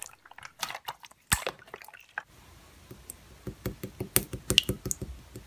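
Slime being squished and pressed by hand, making a quick run of small wet clicks and pops.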